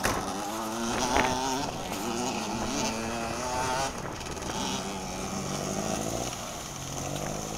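4x4 engine revving under load, its pitch rising and falling, during the recovery of a Toyota Hilux pickup stuck in a water-filled sand pit.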